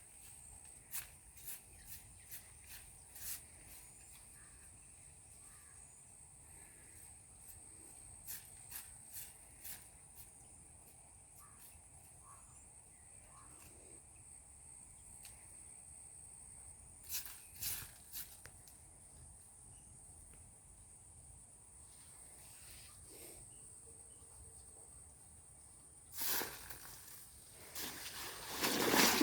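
Outdoor ambience: a steady high-pitched drone, likely insects, with scattered light clicks and knocks, and louder noisy bursts near the end.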